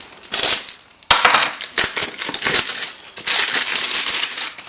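Plastic packaging crinkling and tearing as it is cut open, in several long crackling bursts with sharp clicks.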